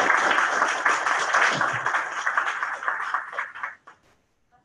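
Applause from many hands clapping, dying away about four seconds in.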